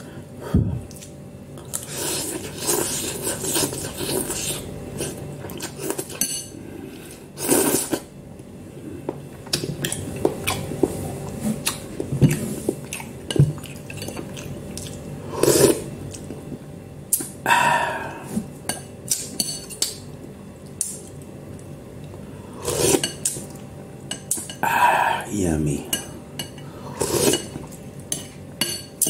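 Metal fork and spoon clinking and scraping against a bowl while noodles are eaten, in scattered short clicks and knocks.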